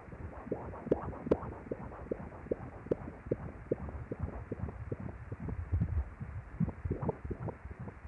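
Fetal heartbeat played through a Voluson S8 ultrasound scanner's pulsed-wave Doppler: rhythmic whooshing pulses at about two and a half a second, around 150 beats a minute. In the last few seconds the beat grows irregular, with low rumbles mixed in.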